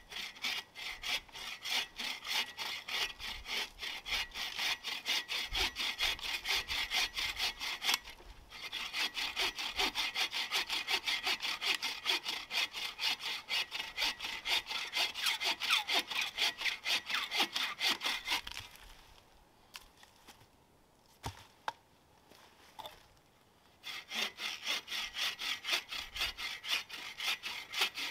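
Hand bow saw cutting through a log, the blade rasping back and forth in steady strokes of about two a second. The sawing breaks off briefly, then for about five seconds about two-thirds of the way through, with a couple of knocks, before the strokes start again.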